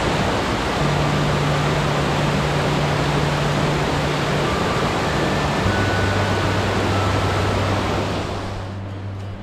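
Creek water rushing over rocky cascades: a loud, steady rush of whitewater that fades out near the end. Low sustained notes of background music sit underneath.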